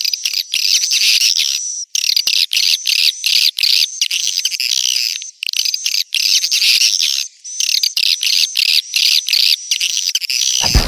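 Swiftlet calls, the chirping lure sound used to draw swiftlets to a bird house: dense, rapid high twittering chirps with brief pauses. Just before the end a sudden lower, fuller sound cuts in.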